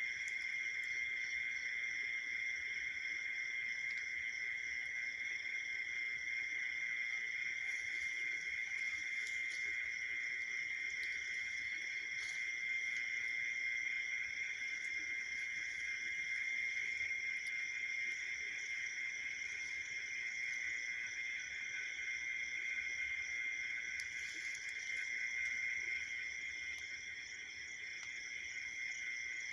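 A steady, high-pitched chorus of night insects, dipping slightly in level near the end.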